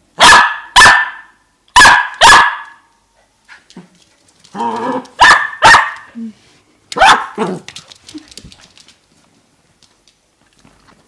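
Young dachshund puppy barking: sharp, loud barks in quick pairs, about eight in all, with a longer growling bark leading into the third pair.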